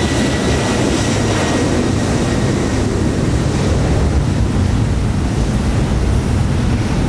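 Boeing 767-300ER's twin turbofan engines at takeoff thrust as the airliner climbs out: a loud, steady rumble, with a faint high whine that fades in the first second or two.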